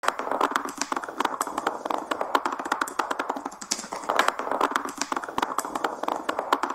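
A fast, irregular clatter of small clicks and taps, many each second.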